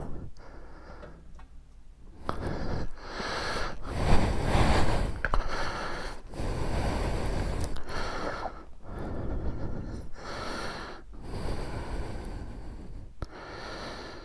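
Heavy breathing close to the microphone: a string of loud breaths, each a second or two long with short pauses between, starting about two seconds in.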